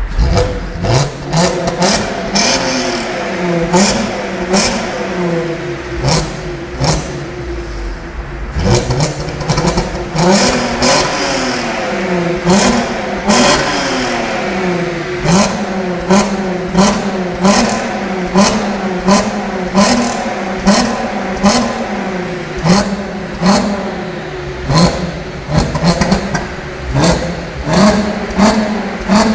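Volkswagen Golf R32's 3.2-litre VR6 engine on its stock exhaust, revved again and again, its note rising and falling with each blip. Many short, sharp cracks come through the revving, about once a second in the second half.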